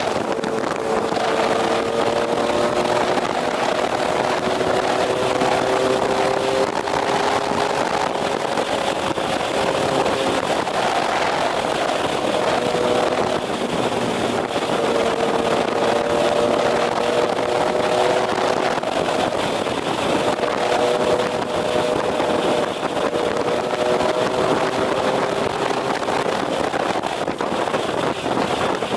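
Motorcycle engine running at expressway speed under steady wind rush. Its drone creeps slowly up in pitch over several long stretches, breaking off and starting again lower.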